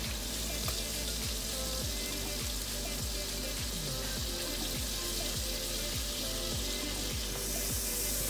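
Background music with a steady beat, over pork chops sizzling in hot oil in a frying pan.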